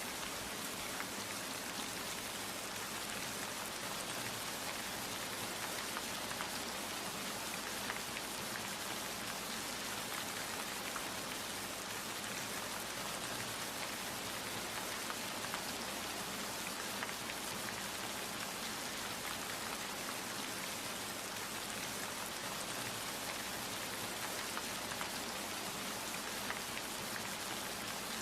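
Steady rain falling: an even hiss made of many small drop ticks, unchanging throughout, with no thunder.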